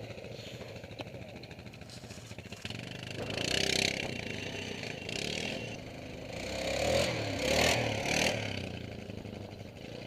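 Several ATV (quad bike) engines running, with two louder swells where the pitch rises and falls as quads rev and pass close by: one about a third of the way in, a longer one in the second half.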